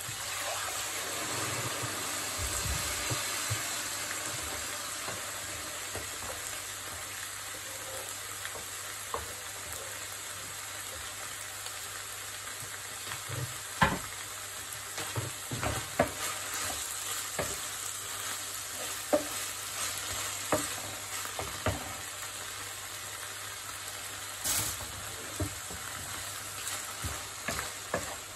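Water poured into a hot frying pan of toasted rice sizzles, louder for the first few seconds, then settles to a steady simmering sizzle. From about halfway on, a wooden spatula knocks and scrapes now and then against a pan as minced meat and peas are stirred.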